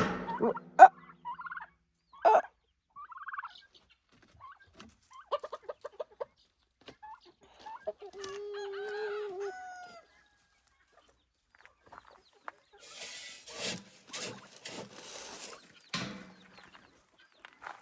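Chickens clucking and calling in short separate calls, with a quick run of clucks and one longer held call about eight seconds in. Near the end comes a few-second spell of scuffing noise.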